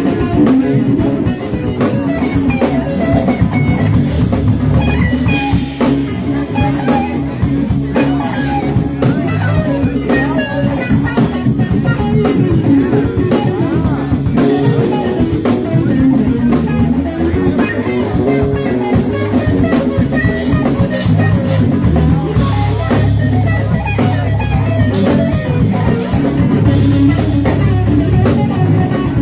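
Live band playing an instrumental passage: guitar over drums, with no singing.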